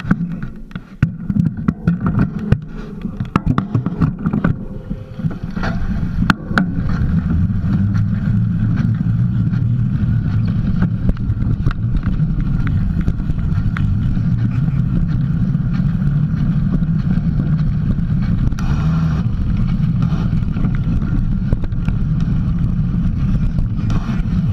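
Mountain bike rolling along a trail: clattering knocks and rattles for the first few seconds, then a steady low rumble of tyres and wind buffeting the microphone.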